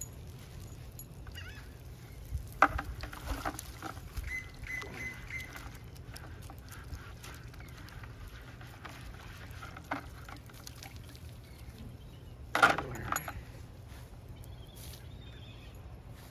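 Gulls calling, with two loud calls about two and a half seconds in and again about twelve and a half seconds in, and fainter calls between.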